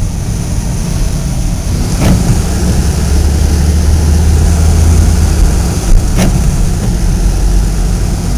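Front-wheel-drive car's engine pulling away slowly from a stop on a slippery snow-covered hill, heard from inside the cabin as a steady low rumble that swells for a couple of seconds midway. A few sharp knocks come about two and six seconds in.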